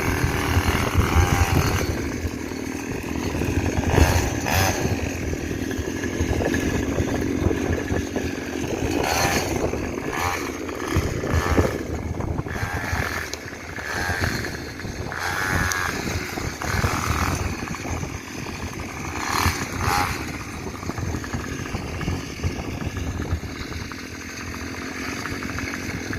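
50cc mini motorbike's small engine running and revving up and down as it rides, with the pitch rising and falling and occasional knocks and rattles.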